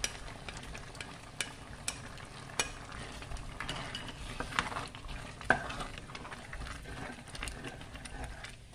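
Wooden spoon scraping ground beef off a plate and stirring it into hot tomato sauce in a stainless steel pot, with sharp clicks of the spoon against the pot, the loudest about five and a half seconds in. The sauce sizzles underneath.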